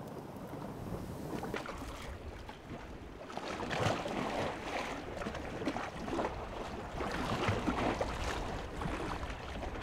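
Hot oil crackling and popping around baked feta and tomatoes in a cast-iron pan, in many small irregular pops, over a low rumble of wind on the microphone.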